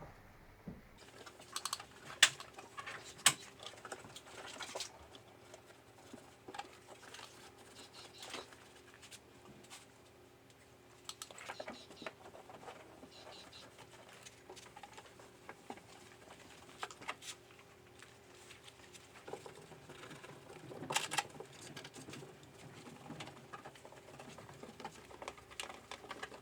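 Small irregular clicks, taps and scrapes of hands working on a car door, over a faint steady hum. The sharpest clicks come about two and three seconds in, and another cluster comes about three-quarters of the way through.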